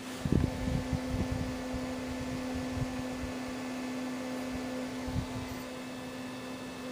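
Steady low electrical hum from a homemade ZVS flyback driver rig and its power supply, over a faint hiss. Low handling bumps come through the first few seconds and once more about five seconds in.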